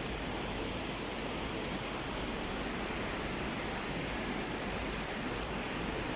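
Sea surf heard as a steady, even rushing, with no single waves standing out.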